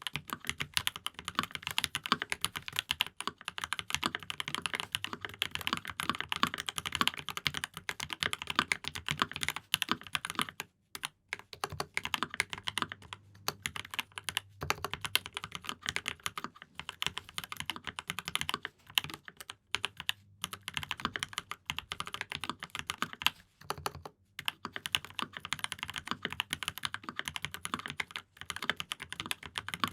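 Steady, fast typing on a custom mechanical keyboard with Alpaca v2 linear switches and GMK keycaps, with short pauses about a third and halfway through and again past three-quarters of the way.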